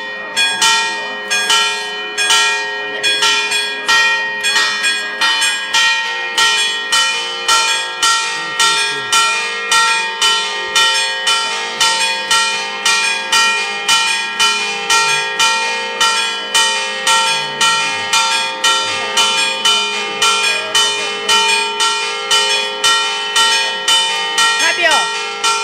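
Church bells pealing fast, roughly two strokes a second, several bells of different pitch ringing on together, with a lower bell joining about six seconds in. A festive peal rung for a saint's procession.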